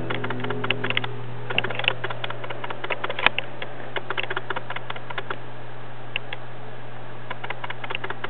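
Irregular light clicks and taps in quick clusters, with one sharper click about three seconds in, over a steady low hum.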